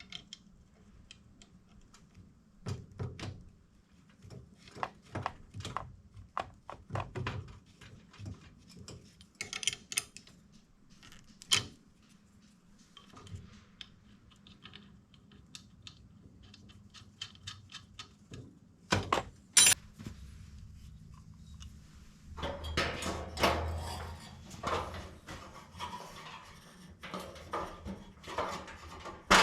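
Construction hand work on a grill frame: scattered knocks, taps and clicks of tools and metal lath being handled. A single sharp crack comes about two-thirds of the way in, and a denser run of clattering follows near the end.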